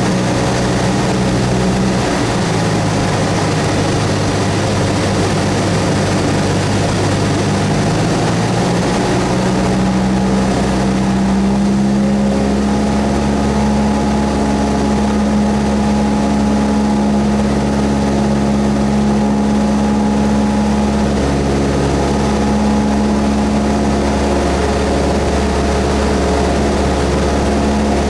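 Cessna 172S's four-cylinder Lycoming engine and propeller running steadily. The engine note dips slightly about two seconds in, then rises to a higher steady pitch around ten to twelve seconds in, as the power setting changes.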